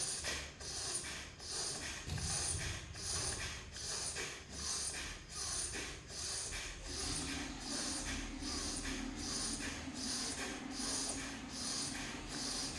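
Rapid, forceful breaths through one nostril at a time, in through the left and out through the right, as in single-nostril bhastrika pranayama for clearing the nose. They come in a quick even rhythm of sharp sniffs, about three every two seconds. A low steady hum joins about halfway through.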